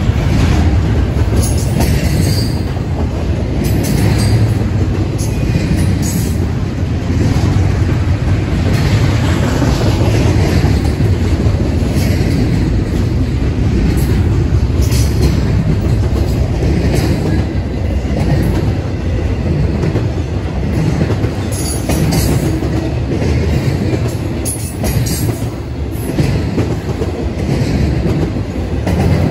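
Intermodal freight train of double-stack container cars and trailer-carrying flatcars rolling past close by: a steady, loud rumble of steel wheels on rail with irregular clicks and clacks as the wheels pass over the rail joints.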